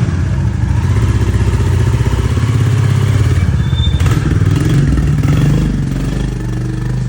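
Royal Enfield Bullet 350's single-cylinder engine running with a steady exhaust thump, picking up revs a little in the middle and easing back near the end.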